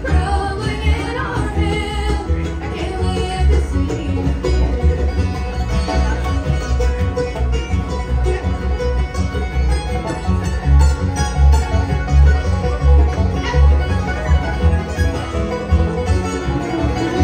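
Live acoustic bluegrass band playing: five-string banjo, fiddle, mandolin, acoustic guitars and upright bass over a steady bass beat, mostly instrumental after a sung line in the first couple of seconds.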